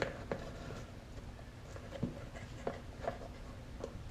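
Faint, irregular small clicks and scrapes of hands working a tube of RTV silicone sealant around a plastic marker-light housing.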